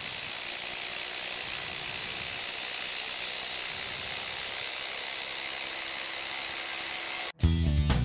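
Bosch IDH182 18-volt brushless impact driver hammering steadily as it drives a 5/16 × 6 in screw into stacked lumber, stopping suddenly about seven seconds in. Music starts right after it stops.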